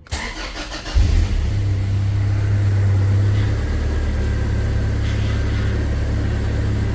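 Toyota Hilux Surf engine cranked by the starter for about a second, catching and then idling steadily.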